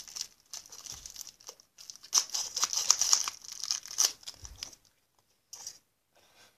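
Plastic candy wrapper being crinkled and torn, in a run of dense crackles from about two seconds in to nearly five, with lighter crinkling before it.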